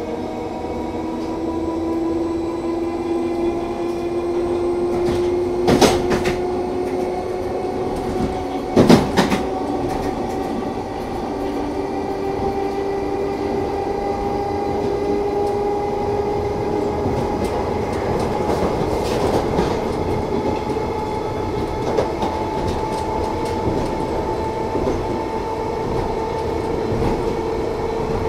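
London Underground 1972 Stock train running, its motor whine rising slowly in pitch as the train gathers speed, with running noise from the wheels. Two sharp knocks come about six and nine seconds in, with a few lighter clicks later.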